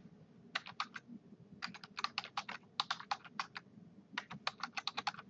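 Computer keyboard keys clicking as a short message is typed, in three runs of quick keystrokes with short pauses between them.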